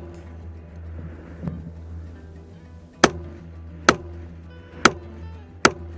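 Four AR-15 rifle shots, sharp cracks a little under a second apart, starting about halfway through. Background music with a steady low bass plays throughout.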